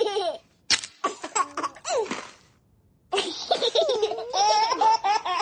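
A baby laughing and giggling in several short bursts, then, after a brief pause, a longer run of laughter.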